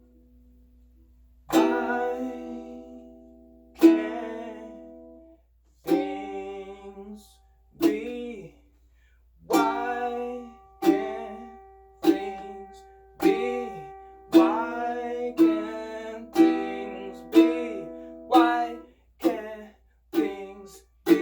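Makala ukulele strummed in single chords, each struck sharply and left to ring out. After about a second and a half of quiet the strums come every two seconds or so, quickening to about one a second toward the end.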